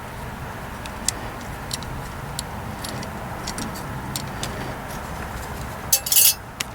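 Small metal parts, washers and bolts, clinking now and then as they are handled, with a louder burst of metallic jingling about six seconds in.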